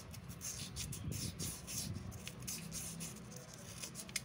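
Hands wiping and rubbing a cooler submersible pump's plastic impeller and magnet rotor clean of built-up dirt: a run of light, scratchy rubbing and handling noises, with a sharp click near the end.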